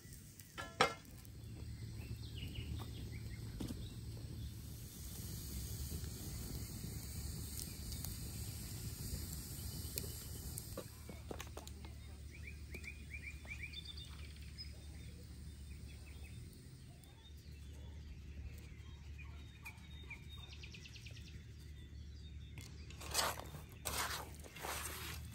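Rural outdoor ambience: a steady low rumble with birds chirping now and then. Near the end come a few sharp knocks and rustles as hands work raw chicken pieces in a metal tray.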